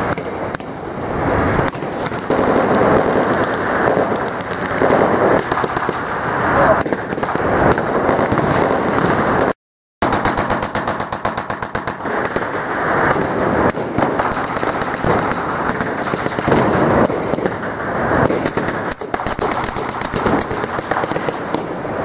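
Blank gunfire from a battle reenactment: dense, rapid machine-gun and rifle fire with hardly a pause, broken once near the middle by a brief silence.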